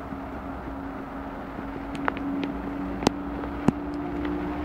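A steady low motor hum, with a few sharp clicks partway through.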